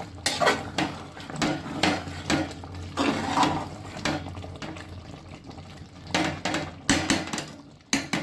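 Metal spoon clinking and scraping irregularly against a cooking pot as the finished curry is stirred and scooped.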